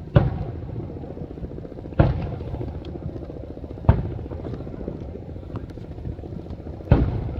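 Fireworks exploding: four loud booms, each echoing away, the last after a longer gap, over a continuous low rumble with a few faint pops.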